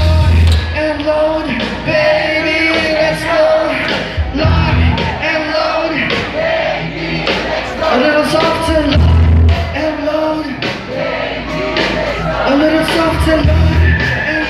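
Live rock band playing loudly through a large PA: a singer's vocals over electric guitars, bass and drums, with heavy low drum hits and cymbal crashes.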